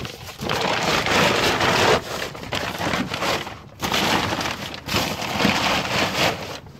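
Black plastic tarp crinkling and rustling as it is pulled and handled, in four long stretches with short breaks between them.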